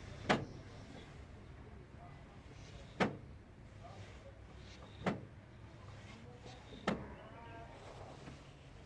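A steady low hum with four sharp clicks, spaced about two seconds apart.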